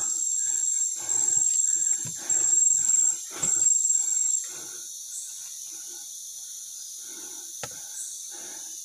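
Footsteps crunching through leaf litter and undergrowth at a walking pace, under an insect's high, steady shrill that comes in long stretches and stops about four and a half seconds in. A single sharp click comes near the end.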